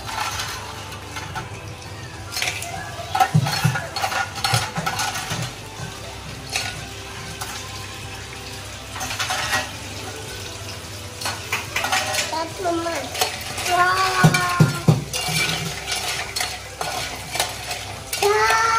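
A utensil stirring food in a pan, scraping and clinking repeatedly against it, while the food sizzles as it fries.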